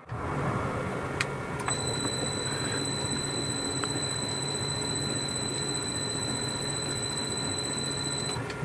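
Boxford lathe running for a thread-cutting pass: a steady mechanical whir of motor and gears with a clock-like ticking. There are two sharp clicks in the first two seconds, and a steady high whine from about two seconds in.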